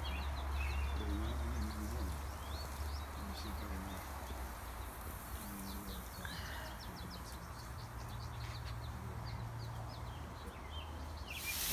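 Songbirds chirping and singing repeatedly in the trees over a steady low hum. Just before the end, a loud sizzling hiss of food on a grill cuts in.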